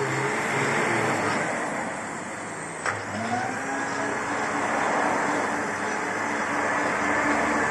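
Truck brake drum lathe running: a steady motor hum with a broad whir. A sharp click comes about three seconds in, and a second motor note then rises briefly and holds steady.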